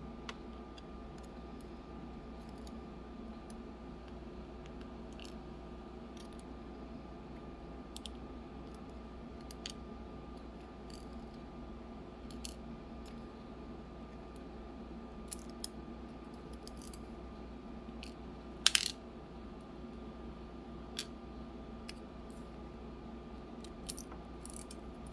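Small metal top pins and spool drivers clicking and tinkling as they are dropped out of a disassembled CX-5 high-security lock cylinder: scattered light metallic clicks, the loudest cluster about three-quarters of the way through, over a steady low background hum.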